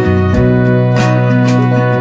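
Background instrumental music: sustained notes over a steady bass, with a regular accent about every second and a quarter.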